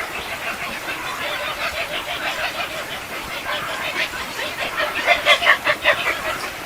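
Many birds calling at once in a dense chatter, getting louder near the end.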